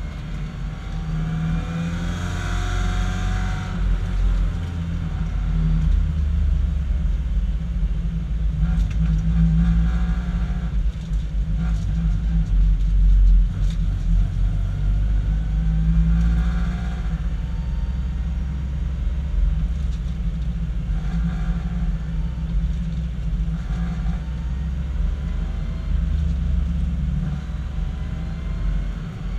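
BMW 318i race car's four-cylinder engine heard from inside the cabin at racing speed: a loud, continuous low drone mixed with road noise, with the engine note rising and falling every few seconds.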